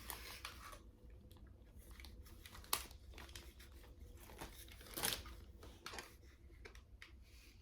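Faint rubbing and crinkling of a hair chalk being pressed and drawn along a child's hair, with a sharp click about three seconds in and a louder rustle about five seconds in.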